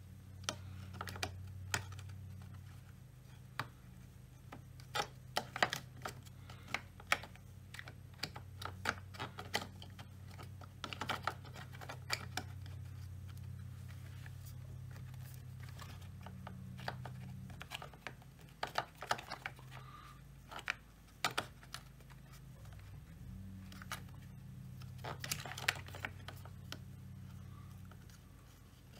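Irregular light clicks and taps in clusters, from parts and tools being handled on a work surface, over a steady low hum.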